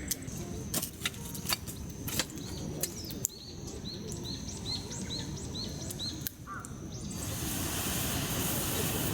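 Campfire crackling with sharp pops over a low steady rumble. A small bird repeats a short chirp about twice a second, then a hiss swells up near the end.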